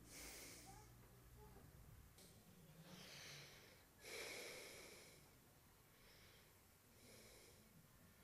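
Faint, slow breathing of a man asleep: soft airy breaths every second or two, the loudest about four seconds in, over near silence.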